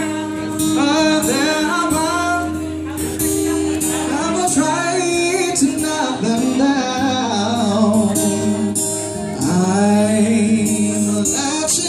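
A male singer singing long, bending held notes over guitar accompaniment.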